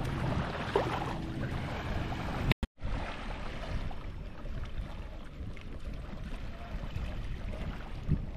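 Beach ambience: small waves lapping at the sandy water's edge, with wind rumbling on the microphone. The sound drops out completely for a moment about two and a half seconds in.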